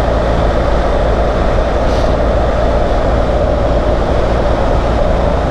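BMW GS adventure motorcycle cruising at a steady, easy speed: a steady rush of wind and road noise over the engine's even drone, with no revving or gear changes.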